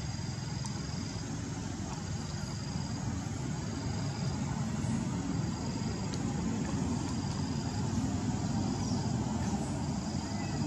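Steady outdoor background rumble, low and constant, with a faint short high-pitched note repeating about every second and a quarter.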